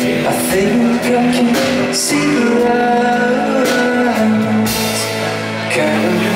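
Live rock band playing: electric guitar, bass and drums with repeated cymbal hits under a male lead vocal sung into a microphone.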